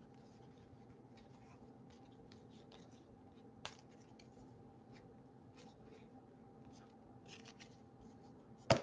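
Faint scratchy slides of baseball trading cards being flipped through by hand, with a light tap about three and a half seconds in and a sharper click near the end.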